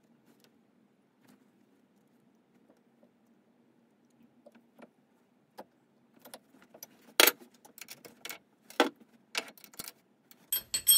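A faint low hum, then from about halfway through a run of sharp metallic clinks and taps as steel hand tools knock against a lathe's three-jaw chuck while a shaft is clamped in it.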